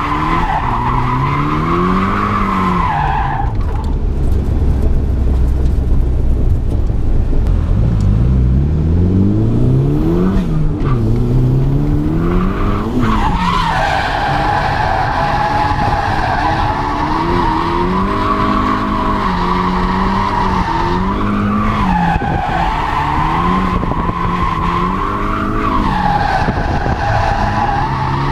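Turbocharged SR20DE four-cylinder of a Nissan S13 heard from inside the cabin, revving up and down repeatedly while drifting, with the tyres squealing in a sustained screech. The squeal dies away for a stretch early on while the engine drops to low revs and climbs again, then returns about halfway through.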